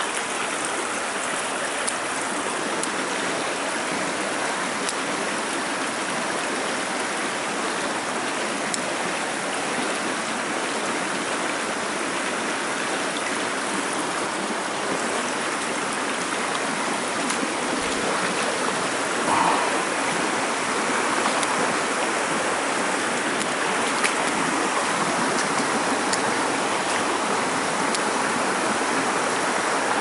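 Shallow rocky stream rushing and burbling over stones close by, a steady wash of water that grows a little louder past the middle.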